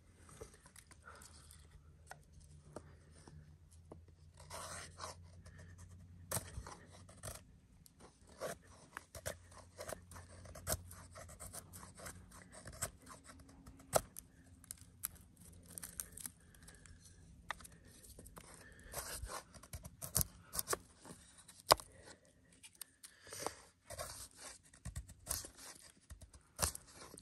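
Puukko knife blade carving damp wood into shavings: irregular scraping strokes of the steel edge through the wood, with sharp scrapes and ticks throughout.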